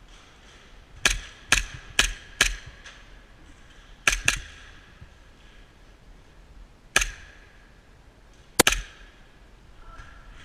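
Shots from a WE Samurai Edge gas-blowback airsoft pistol, each a sharp crack with the slide's snap. There are four shots about half a second apart, then a quick double about 4 s in, a single shot near 7 s and another quick double near the end.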